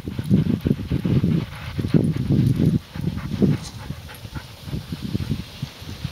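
A team of sled dogs running in harness, pulling a sled over snow, with irregular low pulses of sound from the running dogs.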